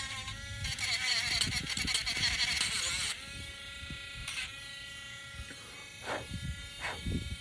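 Small electric sander running, with wood pressed against it for the first three seconds or so, giving a gritty buzz. After that it runs free with a steady hum.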